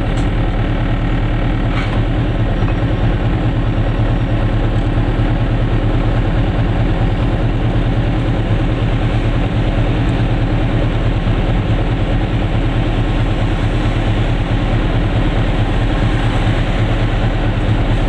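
Goggomobil's small air-cooled two-stroke twin engine running steadily under way, an even drone that holds the same pitch throughout.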